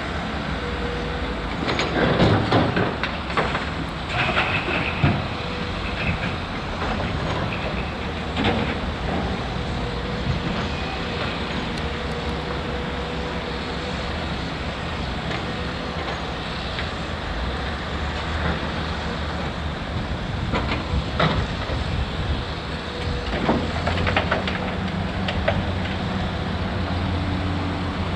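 Heavy diesel machinery running steadily: an excavator and dump truck at work, with a faint steady whine over the engine hum. Clanks and thuds of material and steel striking come in clusters, about two to five seconds in, at about eight seconds, and again after twenty seconds, as the excavator loads the truck.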